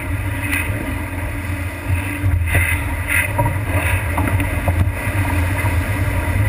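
Water rushing and splashing along the hull of a heeled sailboat moving fast through choppy water, with wind buffeting the microphone in a steady low rumble.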